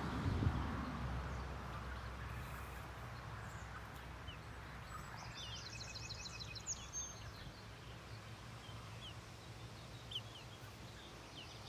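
Outdoor birdsong: scattered short high chirps, with a quick twittering trill about five seconds in, over a low steady hum.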